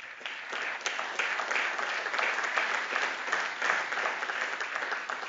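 Audience applauding. The clapping starts suddenly and dies away near the end.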